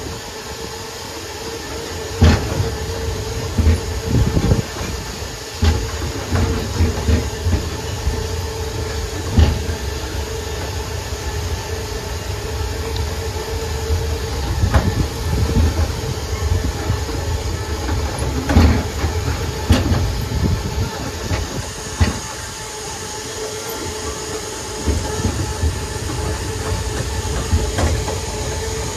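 Boardwalk tram train running: a steady hum over a low rumble, with irregular sharp knocks and clatters every few seconds as it rolls over the wooden boardwalk planks.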